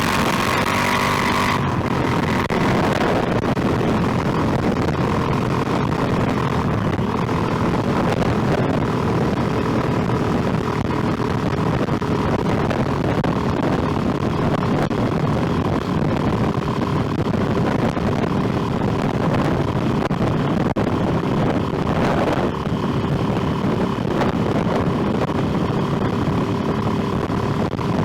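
Motorcycle engine running steadily on the move, with wind and road noise. A bright hiss in the first second and a half cuts off suddenly.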